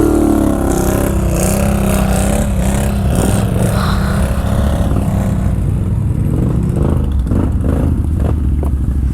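ATV engine running steadily at low revs as the machine crawls over rough ground, with a few knocks and rattles near the end.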